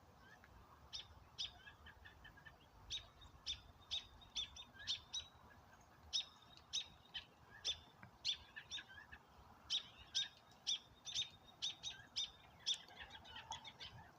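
A songbird chirping: short, sharp high notes repeated in quick clusters with brief pauses between them.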